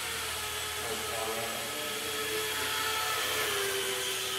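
Blade mQX micro quadcopter in flight: a steady electric whir from its four small motors and propellers, the pitch wavering up and down as it is steered, dipping slightly in the second half.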